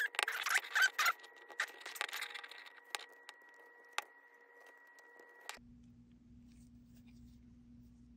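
Close handling of a plastic knitting loom and hook with yarn: a quick run of small clicks and scratches, then a few faint isolated clicks. About five and a half seconds in, it cuts off suddenly to a faint steady low hum.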